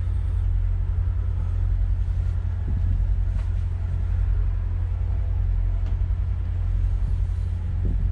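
Detroit Diesel engines of a large Hatteras motor yacht idling at the dock: a steady low rumble with a fast flutter and a couple of faint ticks.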